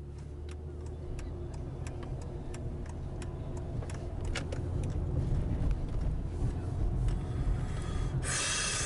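Car engine and road noise heard from inside the cabin while driving, a low rumble that grows slowly louder. Light ticks sound throughout, and a brief loud hiss comes near the end.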